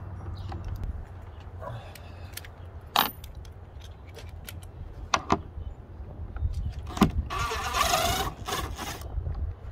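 Cordless DeWalt drill-driver driving a screw into the boat's gunwale for about a second, near the end, after a few sharp clicks and knocks from handling the tool and cable.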